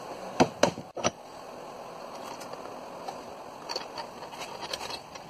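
Small metal corner brackets being handled at a bench vise: a few sharp metallic clicks and scrapes about half a second to a second in and again around four seconds, over a steady hiss.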